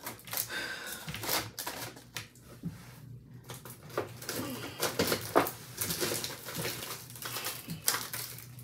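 Clear plastic eyelash cases clicking and rattling against each other and a perforated metal bin as they are rummaged through and picked out, a string of irregular light clicks.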